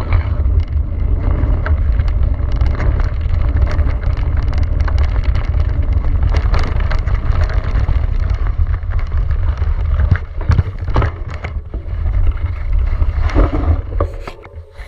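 Wind buffeting the microphone of a handlebar-mounted camera on a Cube Stereo mountain bike descending a dirt trail at speed, over tyre noise and scattered knocks and rattles from the bike on bumps. The rush eases after about ten seconds and drops further near the end as the bike slows.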